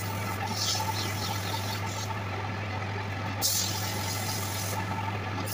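Wood lathe running with a steady low hum while sandpaper is held against the spinning wooden goblet, adding a rough hiss that grows brighter for a moment about half a second in and again after three seconds.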